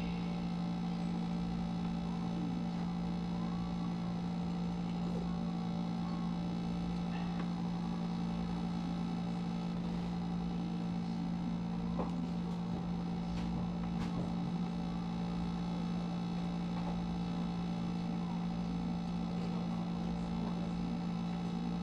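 A steady low hum, made of several constant tones, with a few faint light clicks.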